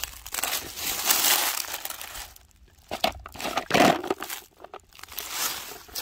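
Dry fallen leaves crunching and crackling underfoot as someone steps through a thick layer of them, in uneven bursts with a short pause about two and a half seconds in.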